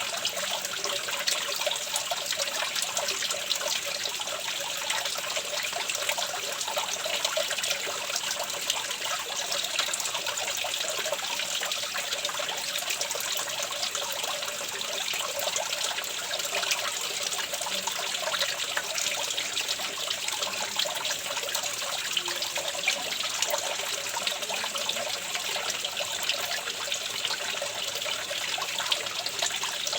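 Running water trickling steadily, a continuous fine splashing with no pauses or changes.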